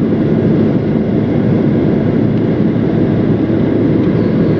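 Steady, loud rumble of a jet airliner in flight: an even roar of engines and airflow with no distinct events.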